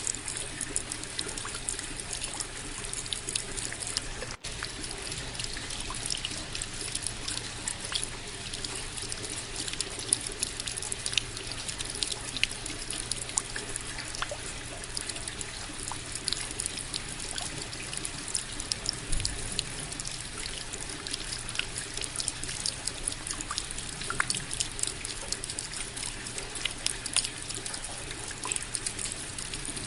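Steady rain, with many separate drops ticking close by over an even hiss. There is a split-second gap about four seconds in.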